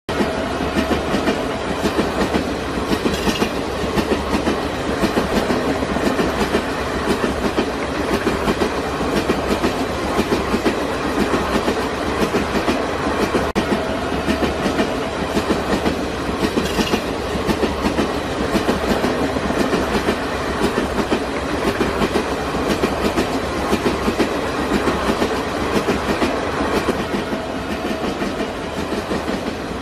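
Passenger train running past, its coaches' wheels clattering over the rail joints in a steady, rapid rhythm.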